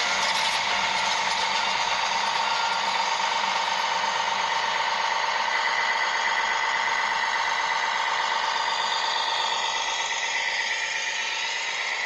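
A small electric motor and gearbox of a radio-controlled construction model running with a steady whine. The pitch shifts somewhat in the last couple of seconds.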